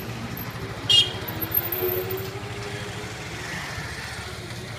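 Street traffic with motor vehicles and motorcycles running, and one short, loud horn beep about a second in.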